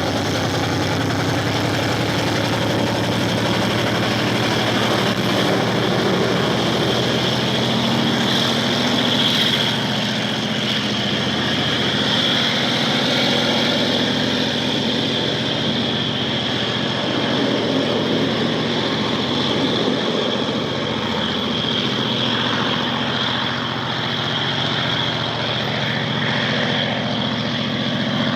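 HO-scale model of an R100-class diesel-electric locomotive running, its diesel engine sound playing steadily as a low drone with a high whine over it.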